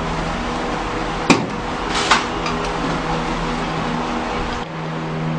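A single sharp knock about a second in, then a few lighter clicks, over a steady low hum.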